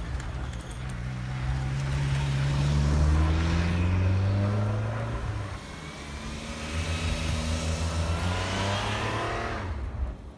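A car's engine accelerating: its pitch climbs for several seconds, drops about halfway through as at a gear change, then climbs again before it cuts off near the end.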